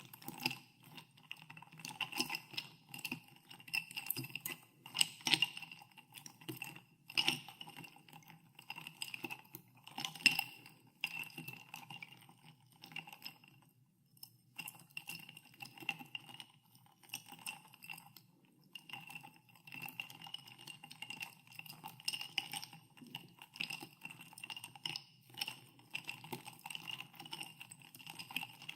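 Ice cubes being stirred in a glass of soda water, clinking irregularly against the glass and each other. There is a brief pause about halfway through.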